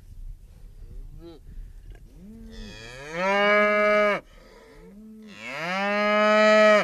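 A cow mooing: two long, loud moos, each rising in pitch and then held steady. The second is cut off abruptly. A faint short call comes about a second in.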